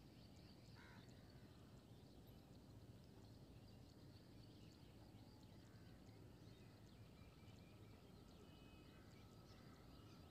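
Near silence: faint outdoor ambience with small scattered chirps, and a faint steady tone in the last few seconds.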